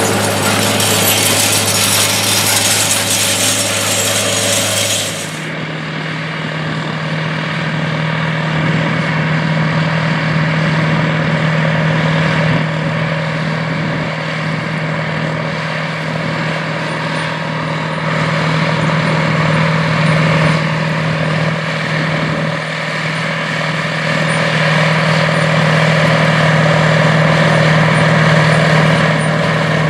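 A tractor's diesel engine working a disc harrow, with a loud hiss, which cuts off about five seconds in. An International 4786 four-wheel-drive tractor's diesel engine then runs steadily under load, pulling a field cultivator.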